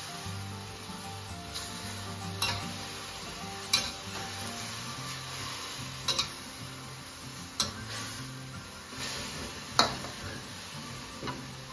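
Chopped cabbage stir-frying in a steel wok with a steady sizzle, while a metal spatula scrapes and clinks sharply against the wok every second or two. Soft background music runs underneath.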